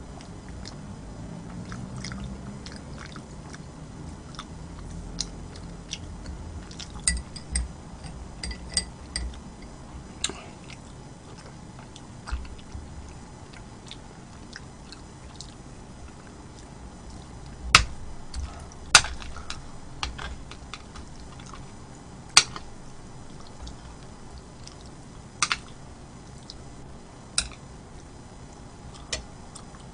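Close-miked eating: steady chewing and biting, with many small wet mouth clicks and several sharp, louder clicks in the second half.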